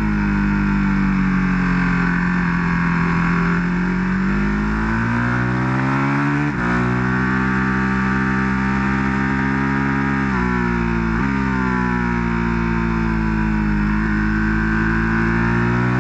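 Ducati 1299 Panigale S's Superquadro L-twin engine heard from the rider's seat at track speed, with wind rush. The engine note rises and falls with throttle and gear changes: a sharp break in the note about six and a half seconds in, then more shifts as the bike drops from third to second gear for a corner.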